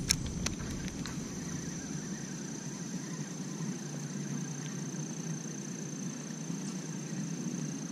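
Spinning reel being cranked to retrieve a spinner, a low steady whir, with a few faint clicks in the first second. A steady high insect drone runs underneath.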